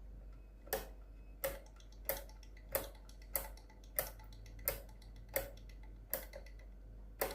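Cuckoo clock movement clicking: about ten sharp, evenly spaced clicks, roughly two-thirds of a second apart, as the chain is worked over the pulley gear.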